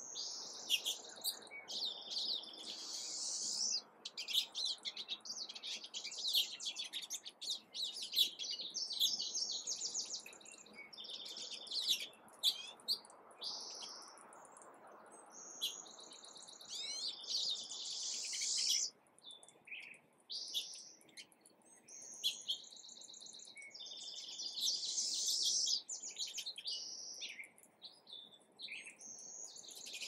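Several small songbirds chirping and twittering over one another in a dense, near-continuous chorus, with a couple of brief lulls.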